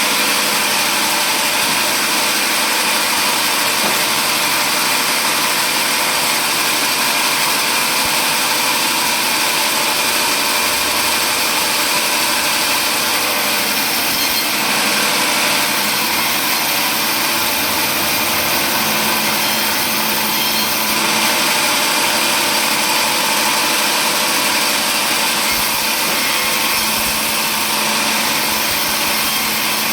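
Power saw running steadily and cutting wood, a loud, even machine noise throughout.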